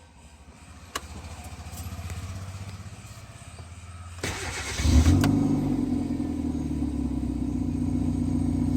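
Hyundai i10 being started: a click as the key turns and a low hum, then the starter cranks briefly about four seconds in. The engine catches with a loud burst about a second later and settles into a steady idle, running on its freshly repaired ECM.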